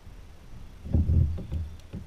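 Low thumps and rumbles of movement in a kayak, starting about a second in and carried through the hull, with a few faint ticks after.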